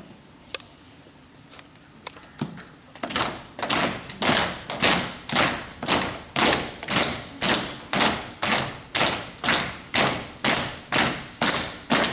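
A steady beat of sharp thumps, about two a second. It starts faint and ragged about three seconds in, then quickly grows louder.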